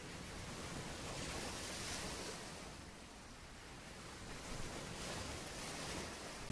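Sea waves washing on the shore, a soft rushing that swells about two seconds in and again near the end.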